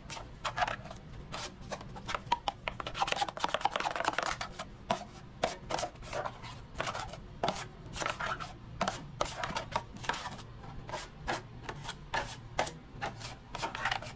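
Steel taping knife mixing wet drywall compound in a metal mud pan: quick repeated scraping and slapping strokes, about three a second, as water is worked through the setting-type mud.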